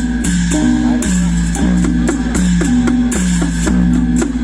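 Loud music: a plucked-string melody repeating a short riff of falling notes about once a second, over a steady deep bass and regular drum and cymbal beats.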